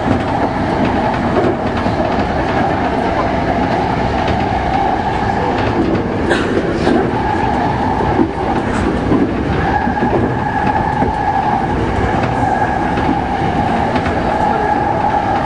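JR East 209 series electric multiple unit running along the line, heard from the driver's cab: a steady running noise. Between about six and nine seconds in come a few sharp clicks, as the wheels pass over rail joints and points.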